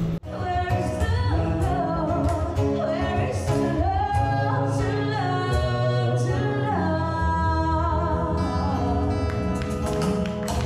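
Live music: a woman singing a melody into a microphone with guitar accompaniment, played through a PA.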